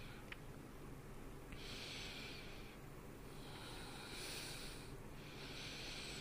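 A man breathing slowly and faintly, three soft breaths heard as gentle hisses.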